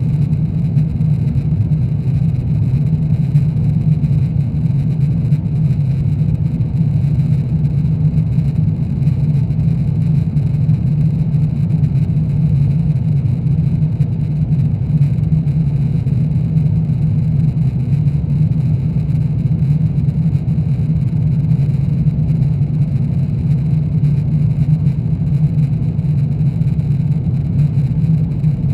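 Airbus A350-900 cabin in flight: a steady, unchanging roar of its Rolls-Royce Trent XWB engines and the airflow, deepest and loudest in the low range, with a faint high steady whine above it.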